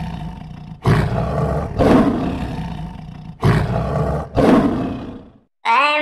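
Lion roaring: four loud roars in two pairs, each trailing off, the last fading out shortly before the end.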